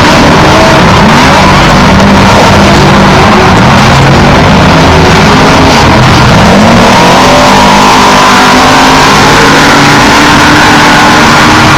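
Off-road race trucks and buggies accelerating hard and passing at full throttle. Several engines overlap, their pitch rising and falling, and the sound is very loud.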